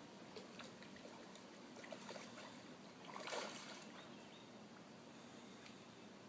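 Carp splashing in shallow floodwater as they spawn, with one louder splash a little past three seconds in over faint, scattered small splashes.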